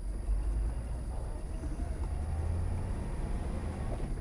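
1960 Chevrolet Corvette's 283 V8 running at low road speed, a steady low exhaust rumble heard from the driver's seat of the open car.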